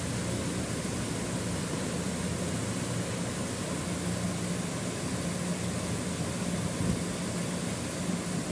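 Steady rushing noise with a constant low hum underneath, like running machinery.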